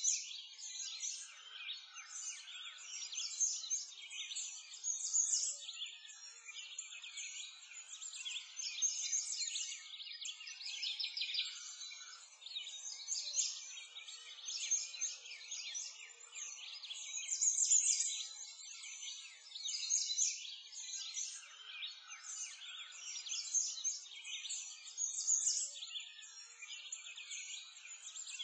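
A dense chorus of many small songbirds chirping and trilling without pause, all high-pitched, with no low sounds beneath.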